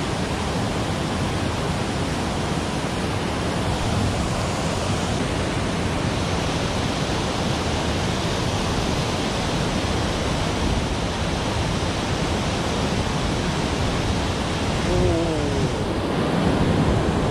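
Stream water spilling over a low concrete weir, a steady rush of falling water.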